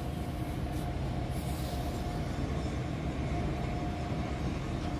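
Steady low rumble of a ship's machinery with a faint constant hum over it.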